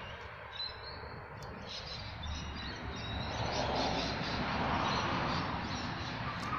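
Steady outdoor background noise with faint high chirping, growing a little louder about halfway through, and a single small click about a second and a half in.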